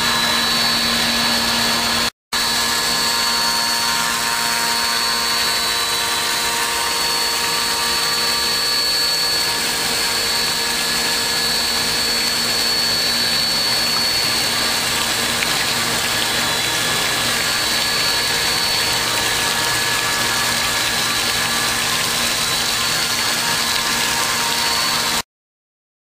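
5-axis CNC milling machine cutting, a steady spindle whine held on several fixed tones over an even hiss of machining. It cuts out for an instant about two seconds in and stops abruptly near the end.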